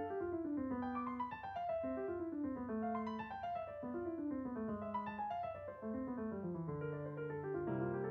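Background piano music, in repeated phrases of notes stepping downward in pitch.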